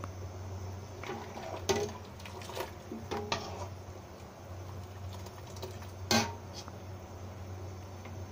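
A few light clinks and knocks on a stainless steel cooking pot over a steady low hum, the loudest knock about six seconds in.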